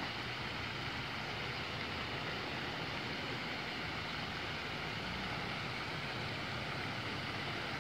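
Steady hiss of splashing water from fountains spraying up out of a river, with a low rumble underneath.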